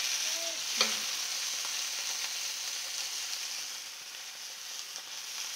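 Beef steaks sizzling in butter in an electric skillet: a steady frying hiss, with one sharp click of a utensil about a second in.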